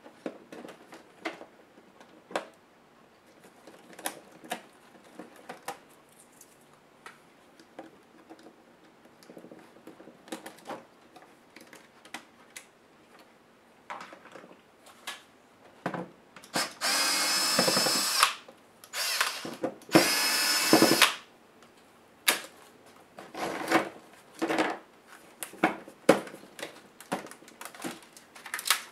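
Light clicks and taps of screws, tools and plastic laptop parts being handled, and twice a little past the middle an electric screwdriver's motor whines for about a second, backing out screws.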